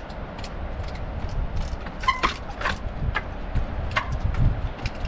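Wind rumbling on the microphone, with the knocks and clicks of a trials bike hopping on rock boulders. The loudest knocks come about two and four seconds in, one with a brief squeak.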